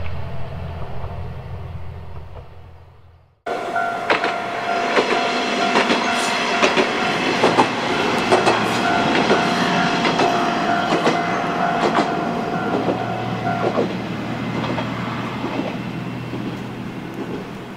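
Isumi Railway diesel railcar running past: wheels click over the rail joints again and again, with a steady high whine that stops about fourteen seconds in, leaving a low engine hum. Before that, a deep diesel engine rumble fades out over the first three seconds and then cuts off.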